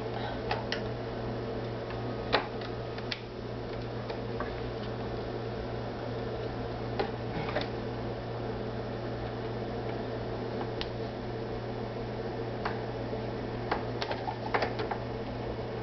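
Light irregular clicks and taps of hands handling thread and parts of a Pfaff 2170 sewing machine during rethreading for a thread change, over a steady low hum. There is no stitching rhythm.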